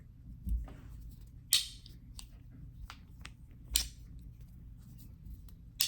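Sharp clacks of magnetic 3D-printed resin fidget pieces snapping and clicking together as they are handled: four louder clacks at irregular intervals, with lighter ticks between them.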